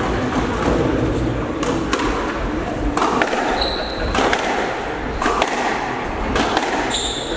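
Squash rally: sharp cracks of racket on ball and ball on wall about once a second, with rubber-soled shoes squeaking on the wooden court floor twice. Spectators murmur underneath.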